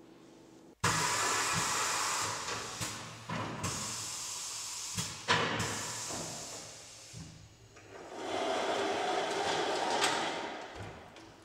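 Pallet dispenser running as it destacks wooden pallets, a steady whirring hiss that starts suddenly about a second in, with a few sharp knocks along the way. The noise dips and swells up again, lower in pitch, past the middle.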